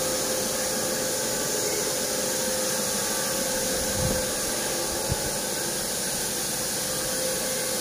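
Steady machine hum with a constant tone and a strong hiss from a running machine. A single short knock comes about five seconds in.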